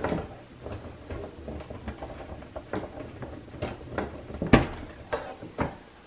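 Scattered clicks and knocks of hands working inside a running desktop computer, unplugging a power connector, with the sharpest knock about four and a half seconds in. A low steady hum runs underneath.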